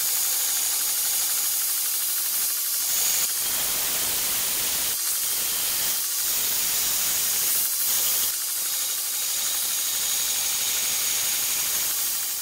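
Belt grinder running, its abrasive belt grinding the edge of a thin metal plate held against it: a steady hiss over a low motor hum.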